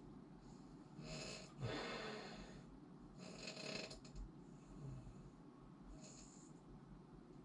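A person snoring, with a few faint rasping breaths: three close together in the first four seconds, the loudest just before two seconds in, and a shorter one about six seconds in. The sound is the relaxed soft palate and uvula vibrating as air passes.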